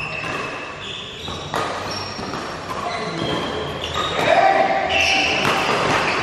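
Badminton doubles rally: sharp racket strikes on the shuttlecock a second or more apart, with sneakers squeaking on the court floor, echoing in a large hall.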